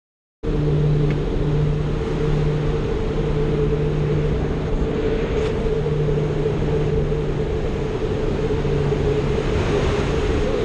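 Steady drone of a skydiving jump plane's engines heard from inside the cabin, cutting in suddenly about half a second in and holding an even pitch throughout.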